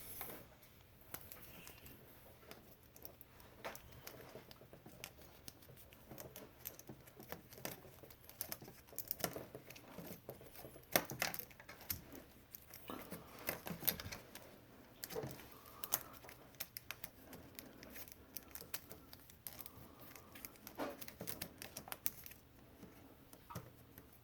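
Plastic spiral-cut wire loom being wound around a bundle of computer cables: faint, irregular rustling, crinkling and clicking of plastic against the cables.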